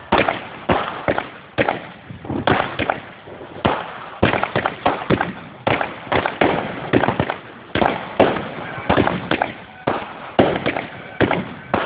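Fireworks going off in a continuous barrage of bangs and pops, several a second, irregularly spaced.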